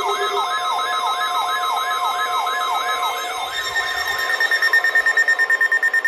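National Weather Service 1050 Hz alarm tone over NOAA Weather Radio, held steady, with a siren-like falling whoop repeating about three times a second on top. About three and a half seconds in, a higher, rapidly pulsing alarm tone joins.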